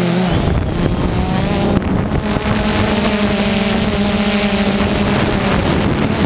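DJI Phantom quadcopter's motors and propellers buzzing steadily in flight, a hum with overtones under a broad rush of wind on the microphone.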